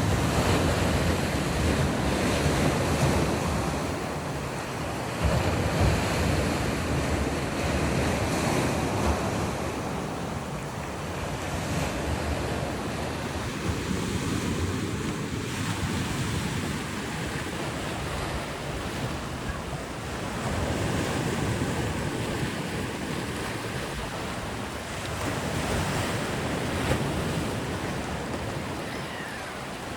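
Sea waves breaking and washing ashore, a steady rushing that swells and eases every few seconds, with wind buffeting the microphone.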